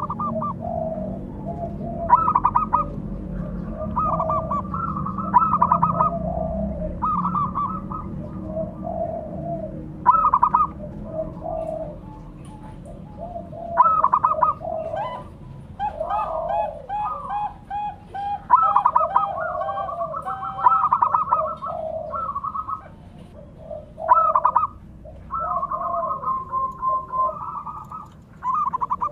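Zebra dove (perkutut) cooing: short rolling coo phrases repeated every second or two, with brief pauses between them.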